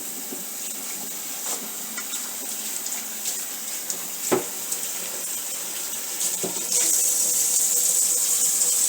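Water running from a kitchen tap into a sink, a steady hiss with a few light clicks, growing louder near the end.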